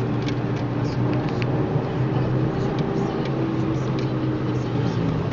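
Car engine and road noise heard from inside the cabin while driving on track, a steady drone whose engine note holds nearly constant, with scattered light clicks over it.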